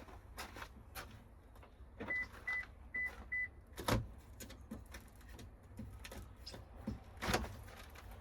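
Four short, high electronic beeps in quick even succession, then two sharp thuds a few seconds apart, over a low steady hum: car chimes and knocks around a car.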